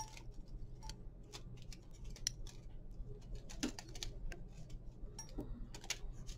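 Faint, irregular clicks and ticks of metal surgical instruments, a needle holder and forceps, being worked at a suture line, over a steady low hum.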